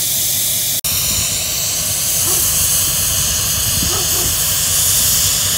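Coupled diesel locomotives idling at close range: a loud, steady hiss over a low engine rumble, broken once for an instant about a second in.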